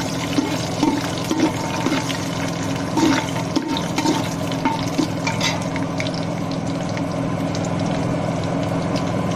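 Cashews, raisins and whole spices frying in a pressure-cooker pot with a steady sizzle, while a spatula scrapes and clicks against the pot, mostly in the first half. A steady low hum runs underneath.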